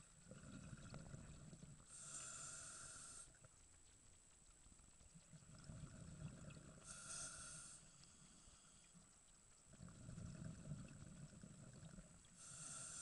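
Scuba diver breathing through a regulator underwater, three breaths about five seconds apart. Each breath is a low bubbling rumble of exhaled air, then a short hiss of inhaled air through the demand valve.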